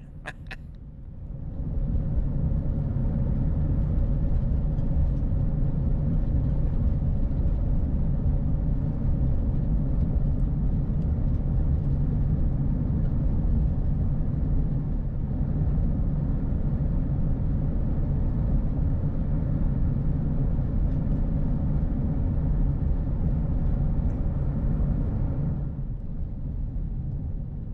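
Vehicle driving, a steady rumble of engine and tyres on the road heard from inside the cab. It swells up early and dies away near the end.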